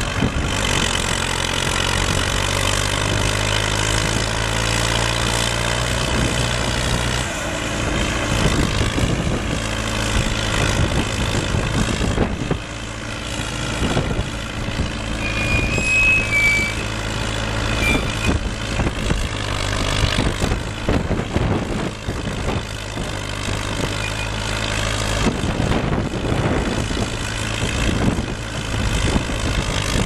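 JCB 214 Series III backhoe's diesel engine running. Its note changes about seven seconds in, then rises and falls with load through the rest of the stretch.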